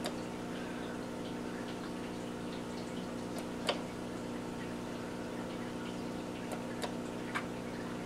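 Steady low hum with a few faint ticks, the clearest a little under four seconds in.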